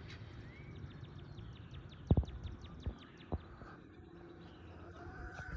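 Outdoor ambience with a fast trill of high ticks, about ten a second, lasting about three seconds, from a small bird or insect. A few low thumps land about two to three seconds in, and a short pitched call comes near the end.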